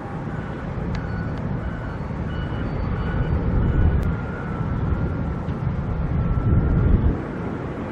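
Wind buffeting the microphone in a loud, uneven rumble over distant construction machinery running, with faint short high tones repeating about twice a second.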